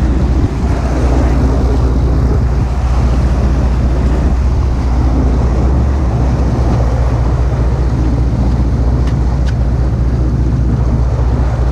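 A boat's engine runs steadily at sea, with wind buffeting the microphone and the wash of water.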